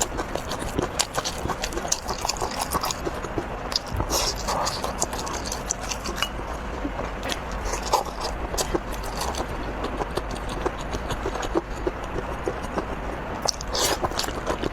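A person chewing and biting food close to the microphone, with a steady run of small wet clicks and smacks.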